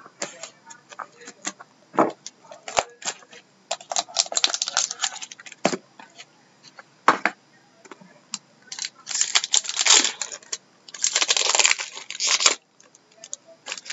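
Crinkling and rustling of packaging: a cardboard card box is handled and opened, then a foil-wrapped trading card pack is crinkled and torn open. Scattered sharp clicks, with longer bursts of crinkling in the middle and near the end.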